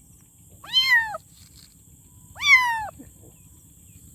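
A kitten meowing twice, each meow about half a second long and rising then falling in pitch.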